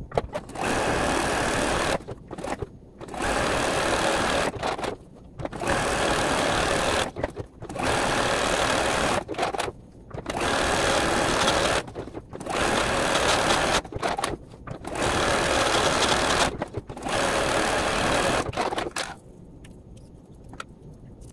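Juki DX7 sewing machine stitching a narrow zigzag, running in short bursts of one to three seconds with brief stops between them. It stops a couple of seconds before the end.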